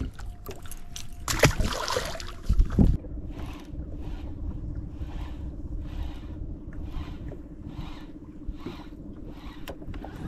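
Baitcasting reel being cranked to retrieve a crankbait, with a soft rhythmic whir on each turn of the handle, over a steady low hum. Knocks and a heavy thump come in the first three seconds, before the cranking starts.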